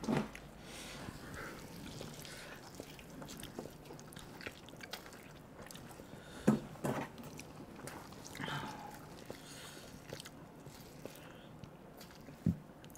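A man chewing a mouthful of black bean noodles eaten by hand, with faint wet mouth noises and a couple of sharp clicks, about six and a half and twelve and a half seconds in.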